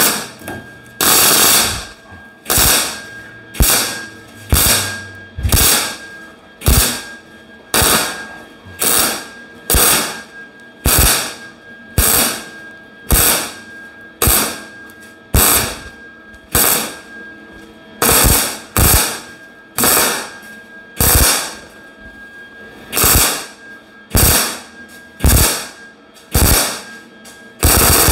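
MIG welder laying a string of short tack welds on sheet steel, about one burst a second with brief pauses between, joining a new patch panel to a rusted car inner fender.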